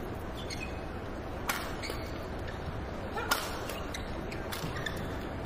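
Badminton rackets hitting a shuttlecock three times in a rally: sharp smacks about every one and a half seconds over the steady hum of an arena crowd.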